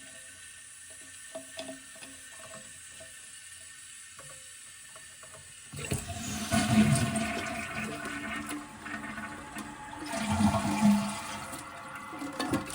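Faint steady hiss of water in a toilet tank, then about six seconds in a toilet flushes with loud rushing water that carries on, surging again near the end.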